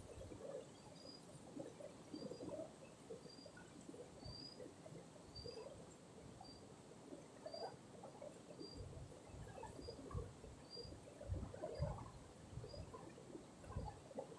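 Shallow river water faintly gurgling and lapping over rock. A short high chirp repeats about once a second through it.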